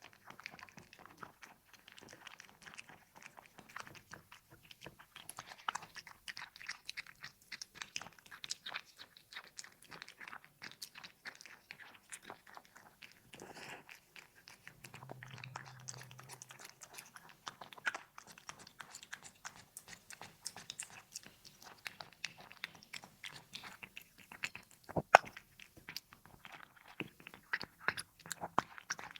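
A cat chewing and eating close to the microphone: a dense, irregular run of small wet clicks and crunches from its mouth, with one sharper, louder click about 25 seconds in.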